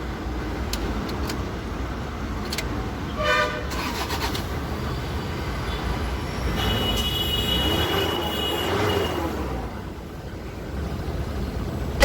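Roadside traffic noise with a vehicle horn tooting briefly about three seconds in, and a longer steady high tone from about six and a half to nine seconds.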